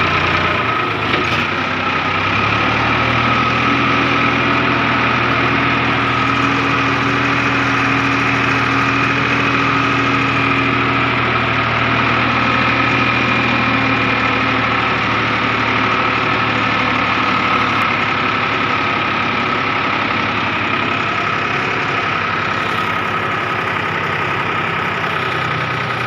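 Tractor diesel engine running steadily under way, heard from the driver's seat. A deeper engine note comes in about two seconds in and drops away around halfway through.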